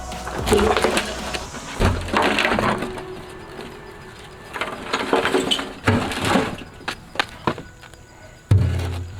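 A series of irregular knocks and clattering impacts, with a heavier thud near the end.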